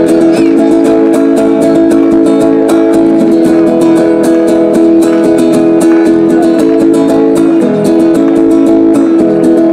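Live folk music: a strummed acoustic guitar with an accordion holding sustained chords.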